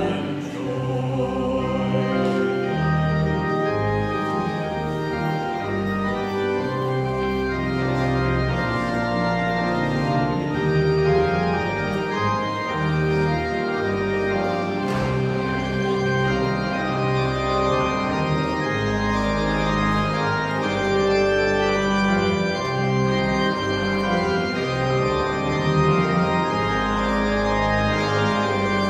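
Church organ playing on its own with long held chords over deep pedal bass notes, once the congregation's singing has stopped.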